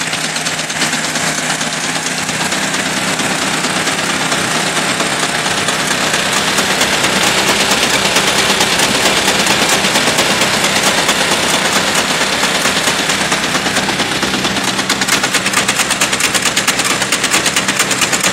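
The homemade helicopter's small engine running hard, with a rapid, even popping exhaust beat. It grows louder over the first several seconds, then holds steady.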